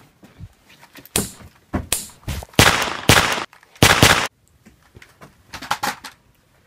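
Gunshot sound effects: a string of loud shots in quick succession, each starting sharply and fading quickly, from about a second in until just past four seconds.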